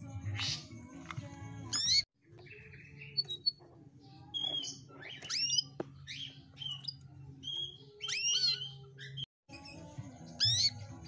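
Female domestic canary chirping and calling in short, separate phrases with quick rising sweeps, over a low steady hum; these are the calls used as a lure to set male canaries singing. The sound cuts out abruptly for a moment about two seconds in and again near the nine-second mark.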